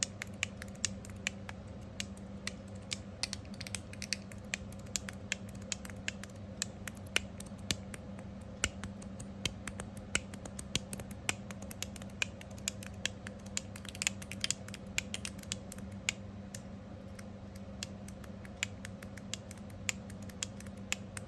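Copper TopB mechanical fidget slider worked back and forth, its Ultim block clicking against the ends of a stainless click plate in a quick, uneven run of sharp clicks. Under it is a slight squeakiness, which the owner puts down to the springs.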